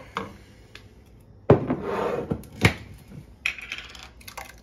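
Thick marinara sauce sliding and plopping out of an upturned glass jar into a stainless steel pot. A sharp knock of the glass jar comes about a second and a half in, and another comes about a second later.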